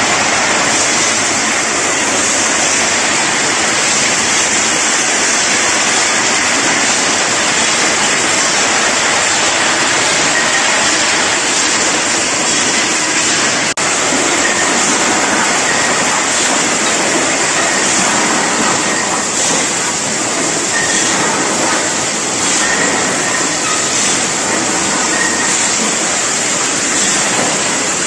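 Machinery of an automatic mini gas canister filling, capping and shrink-wrapping line running with a steady, loud, hissing noise, broken briefly about halfway through.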